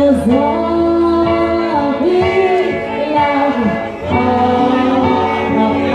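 A woman singing long held notes that waver and slide in pitch, with a live band accompanying her.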